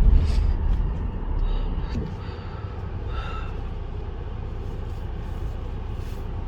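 Low, steady rumble of the Tata Harrier SUV on a rough unpaved track, louder for the first two seconds and then easing to a quieter, even level.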